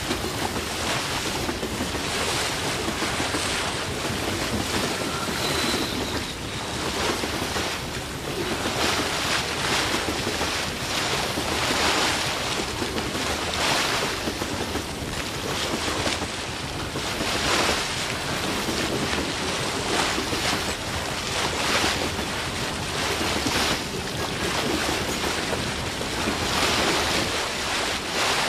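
A continuous rushing noise that swells and ebbs every two seconds or so, in the manner of surf washing in.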